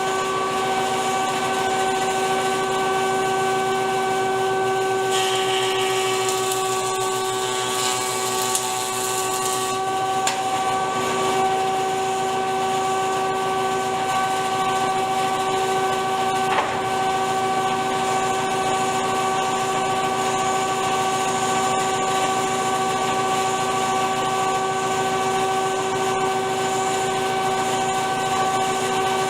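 Stationary woodworking machine, a jointer or table saw, running steadily with a constant hum. A rougher, hissier stretch comes from about five to ten seconds in.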